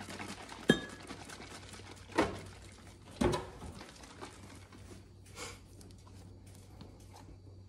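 Milk sloshing inside a capped sauce bottle as it is shaken to rinse the leftover garlic Parmesan sauce from its sides, with a sharp click about a second in and short louder sloshes around two and three seconds in.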